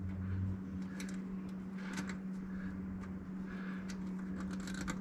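Faint scattered ticks and rustles of a plastic zip tie being handled and threaded through the radiator guard's mounting corner, over a steady low hum.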